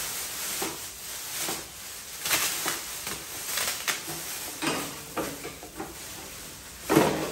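Clear plastic wrapping crinkling and rustling in irregular handfuls as it is pulled up and off a lawnmower, loudest near the end.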